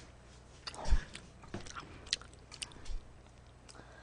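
Faint, scattered clicks and light knocks from a person moving at a table of food, with a soft low thump about a second in.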